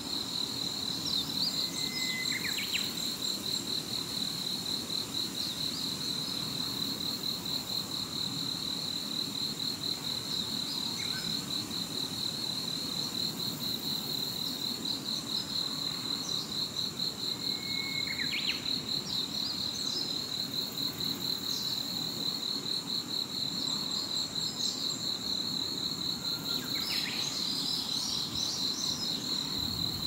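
Insects trilling in a steady, fast-pulsing high buzz, with brief whistled notes about two and a half seconds in and again past the middle, and a cluster of chirps near the end.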